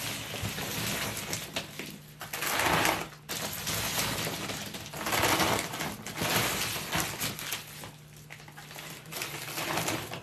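Handmade carp-bait boilies being poured and scooped into a bag, rattling and rustling in several swells a second or two long.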